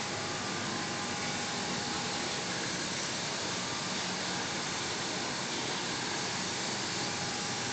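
Automatic ceramic plate glazing machine running: a steady, even hiss with a faint hum, unchanging throughout.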